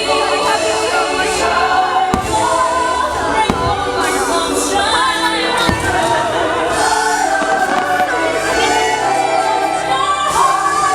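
Fireworks show soundtrack playing loud: orchestral music with a choir singing, with a few sharp firework bangs in the first half.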